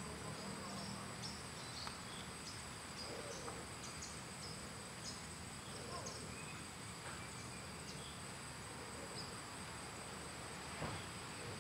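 Tropical insect chorus: two steady, high-pitched drones from crickets or cicadas, with short high chirps scattered through.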